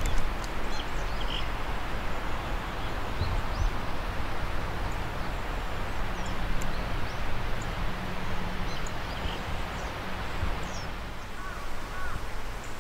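Outdoor ambience: a steady rushing noise with a low rumble, with a few small bird chirps scattered through and a short pair of lower bird calls near the end.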